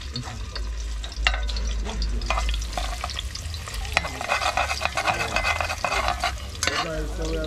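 Garlic, ginger and hot pepper frying in oil in a metal pot, sizzling and crackling while a metal spoon stirs and scrapes against the pot. The scraping gets denser and louder from about four seconds in for a couple of seconds.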